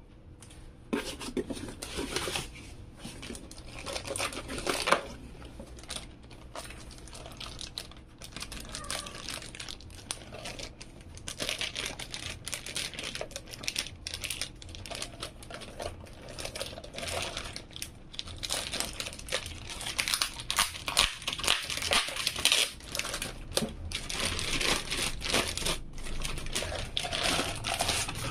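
Clear plastic bag crinkling and rustling as a boxed power supply is lifted out and unwrapped, with cardboard packaging being handled. The crackling starts about a second in and is denser and louder in the second half.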